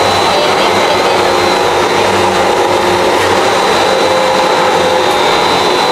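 SKJ350 pellet mill running steadily under load, pressing pellets: a loud, even mechanical whir with a faint steady high whine over it.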